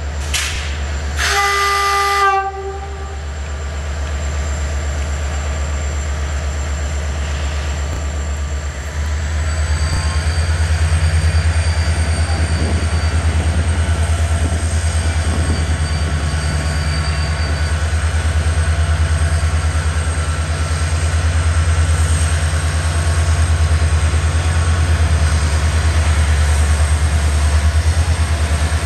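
Romanian CFR class 65 diesel locomotive sounds one horn blast about a second long near the start. Then it pulls its passenger train slowly out with a steady low engine drone. The engine grows louder about nine seconds in as it takes more power, with a thin high whine rising alongside.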